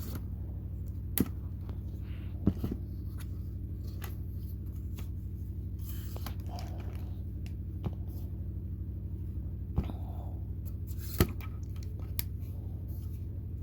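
A few sharp clicks and taps from small hard objects being handled, spread unevenly, over a steady low electrical hum.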